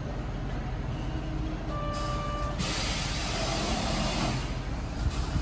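Route bus idling with a steady diesel rumble; about two seconds in a short warning tone sounds, then a loud hiss of compressed air from the bus's pneumatic system lasts about two seconds and fades.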